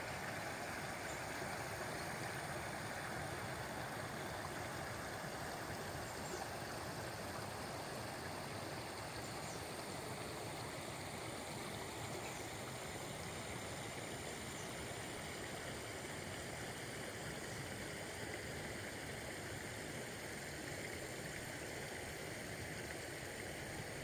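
River water flowing: a steady rushing hiss.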